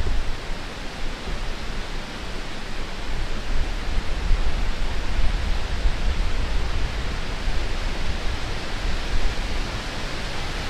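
Wind blowing across the microphone: a steady rushing hiss over an uneven low rumble.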